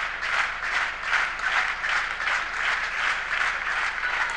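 Arena crowd applauding after a point, the clapping swelling and falling in a regular beat about two to three times a second.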